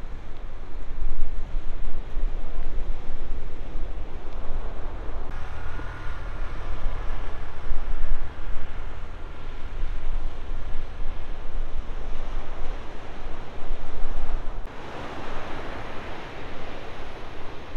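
Ocean surf breaking, with wind buffeting the microphone in a heavy low rumble. The sound shifts abruptly twice, about five and fifteen seconds in.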